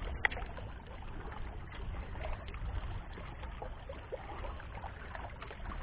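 Outdoor waterside ambience: a steady low wind rumble on the microphone with faint small splashes and trickling water.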